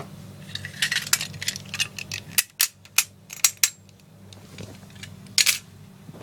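Packaging being handled and opened by hand: a run of sharp crackles and clicks, like plastic wrap or cardboard being pulled apart. One more loud crackle comes near the end, over a steady low hum.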